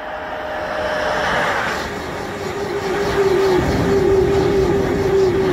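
High-speed TGV-type electric train passing at speed: a loud rushing noise that builds over the first two seconds, joined by a hum that pulses about three times a second as the train goes by.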